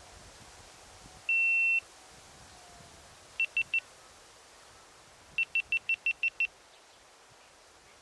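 High-pitched electronic beeps, all at the same steady pitch: one long beep, then three quick short beeps, then a run of seven short beeps, over a faint forest ambience.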